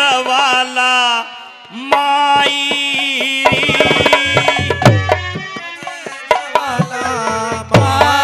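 Live Haryanvi ragni folk music: a held, wavering melody over quick hand-drum strokes, with heavier low drum beats coming in about halfway through and again near the end.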